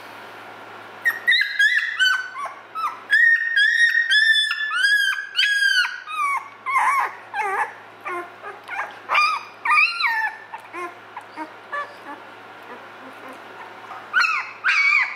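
Two-week-old goldendoodle puppy crying in a quick string of high whines and yelps while a DNA cheek swab is held in its mouth. The cries start about a second in and come thick for several seconds, then grow sparser, with another short burst near the end.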